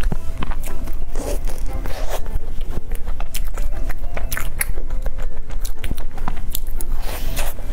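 Close-miked chewing of a crusted chestnut cream puff: wet mouth clicks and crackles of pastry, many in quick succession.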